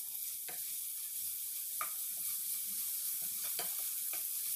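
Crushed green chilli, ginger and garlic sizzling in hot ghee in a nonstick frying pan while a wooden spatula stirs them, with a few sharp taps of the spatula against the pan.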